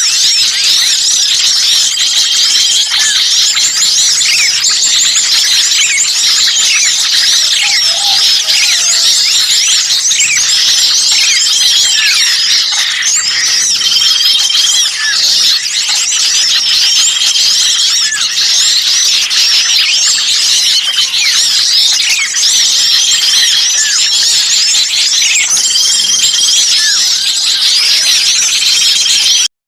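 Bird-luring recording of many small songbirds calling at once, a dense, loud mass of high chirps and trills with repeated short held whistles: the agitated, alarm-like chatter of small birds used to draw other birds in. It cuts out briefly just before the end.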